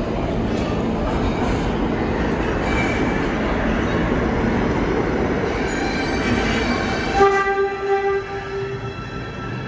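R142 subway train passing through the station at speed without stopping, its wheels rumbling steadily on the rails. About seven seconds in, a horn sounds for under two seconds, and the rumble falls away.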